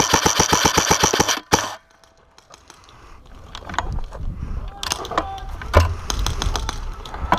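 Airsoft gun firing a rapid full-auto burst of evenly spaced shots that stops about a second and a half in. After a short quiet gap, rustling and scattered light clicks of movement follow.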